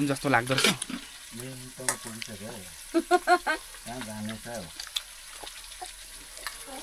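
Food frying in a pan with a steady sizzle and crackle while it is stirred, with voices talking briefly several times.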